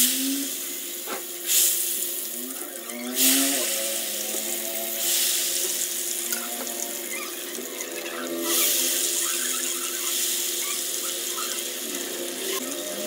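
Hot ghee sizzling hard as ghevar batter fries in a small steel saucepan. The sizzle swells sharply several times as more batter is spooned into the ghee.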